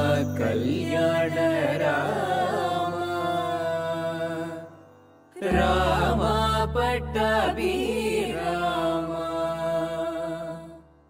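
Devotional chant sung over a steady drone, in two long phrases with a short break about five seconds in.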